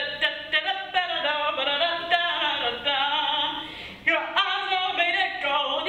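Music: a voice singing a song.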